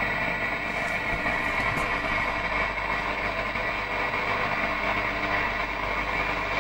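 Steady hiss of static from an old Pilot T85M radio turned up while not yet tuned to any signal, with a low mains hum underneath.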